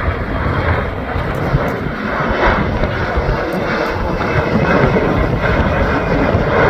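Gulfstream C-37A business jet's twin Rolls-Royce BR710 turbofans at takeoff power, a loud, steady jet noise. Gusts buffet the microphone, adding a fluctuating low rumble.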